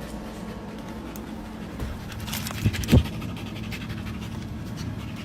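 An animal panting steadily, with a short louder thump-like sound about three seconds in.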